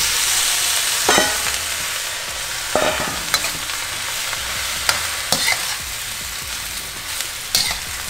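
Napa cabbage and bok choy sizzling in a hot wok, loudest just as the greens go into the oil. A metal spatula scrapes and clinks against the wok several times as they are tossed.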